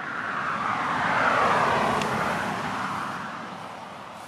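A vehicle passing by: a broad rushing noise that swells to a peak about a second and a half in, then fades away.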